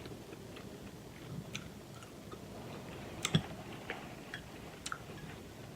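Close-up eating sounds: quiet chewing with scattered small wet clicks and smacks, one sharper click a little past halfway.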